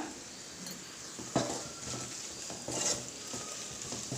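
Sautéed onions, dried chilli and garam masala frying in oil in a pan with a steady light sizzle, stirred with a spoon that scrapes the pan about a second and a half in and again near three seconds.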